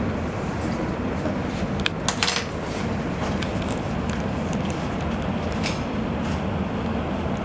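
Steady low room hum, with a quick run of sharp clicks and clinks about two seconds in and a few fainter ticks later.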